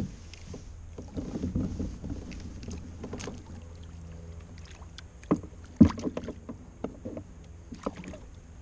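Scattered knocks and clicks of fishing gear being handled aboard a plastic fishing kayak, with a few sharp ones clustered past the middle, the loudest a little past halfway, over a steady low rumble.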